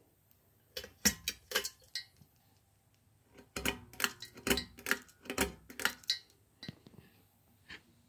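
Ceiling fan pull-chain switches being worked: a run of sharp clicks with the metal bead chains clinking against the brass and glass light fixture, in two bursts about a second in and from about three and a half to six seconds in.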